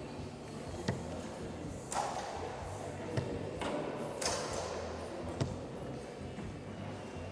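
Steel-tip darts striking a Winmau Blade 6 bristle dartboard: several sharp knocks about a second apart, over the murmur of voices in a large hall.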